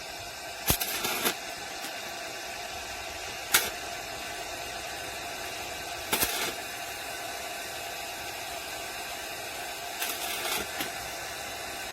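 Steady background hiss broken by a few short clicks and knocks: two about a second in, one sharp one at about three and a half seconds, another around six seconds, and a short cluster near the end.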